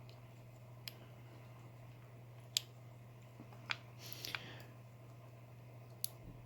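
A handful of faint, scattered small clicks and taps from lock pins and a picking tool being handled while the pin stacks are taken out of a disassembled padlock core, a few bunched together about four seconds in, over a low steady hum.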